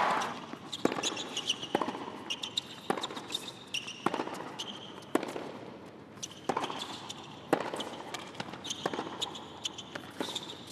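Tennis rally on a hard court: the ball is struck by rackets and bounces, a sharp hit about every second. Short sneaker squeaks come between the hits.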